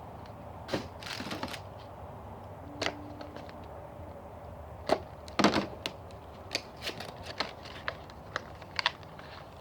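HeroClix booster packaging and plastic figures being handled: scattered sharp clicks and crackles, with the loudest knocks about five seconds in.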